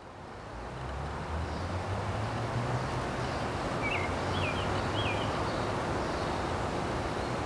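Steady low traffic rumble outdoors, with a small bird giving three short chirps about four seconds in.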